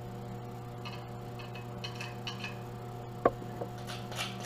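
Hobart stick welder humming steadily at idle with no arc struck, under scattered light ticks and one sharp click a little after three seconds from the electrode and holder being handled against the workpiece.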